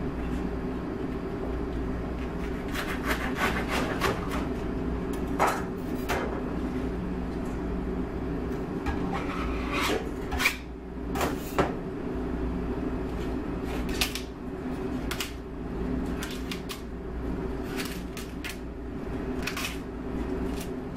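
Serrated knife sawing through tough artichoke leaves and stem, with repeated sharp knocks of the blade on the cutting board, over a steady low hum.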